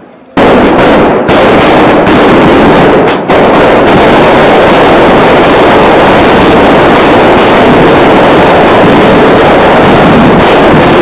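Firecrackers going off in a very loud, dense, continuous crackle that starts abruptly about half a second in and barely lets up.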